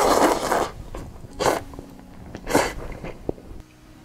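A person slurping a mouthful of instant noodles, the slurp ending within the first second, then two short, sharp intakes of breath about a second apart while chewing.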